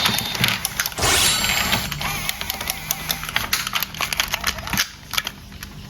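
Rapid, irregular clicking and clattering of plastic toy pieces being handled, dying down briefly near the end.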